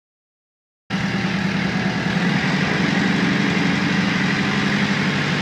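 Glass-bottom boat's engine running steadily, cutting in suddenly about a second in.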